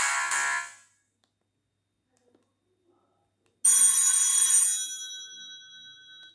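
Sony Ericsson Z320i mobile phone ringtones: one tune fades out about a second in, and after a short gap a bright, bell-like chime strikes and rings on, fading slowly.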